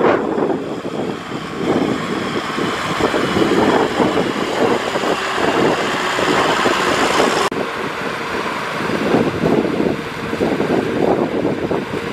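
Farm tractor's diesel engine working under heavy load as it hauls a loaded trailer through deep mud, with wind buffeting the microphone. The sound changes abruptly about seven and a half seconds in.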